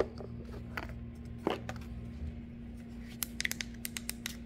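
Light clicks and taps from handling a small switch panel and its cardboard-and-foam packaging, a few scattered at first, then a quicker run of small clicks near the end, over a steady low hum.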